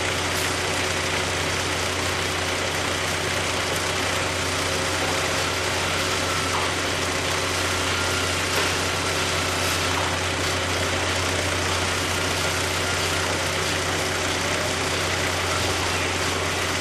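Belt conveyor system running steadily: an even mechanical drone with a constant low hum from the drive motors.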